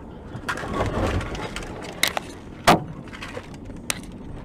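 Vehicle collision heard through a dashcam from inside the following car: a crunching, rattling burst of impact about half a second in, then several sharp knocks of flying debris, the loudest near the middle.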